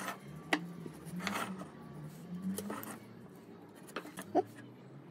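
Light handling sounds of a metal carpenter's square and a pencil on a wooden workbench: a few sharp clicks and taps as the square is set down and shifted, and a short scrape about a second and a half in.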